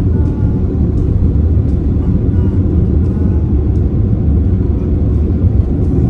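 Steady low rumble of road and engine noise inside a car's cabin while driving at highway speed.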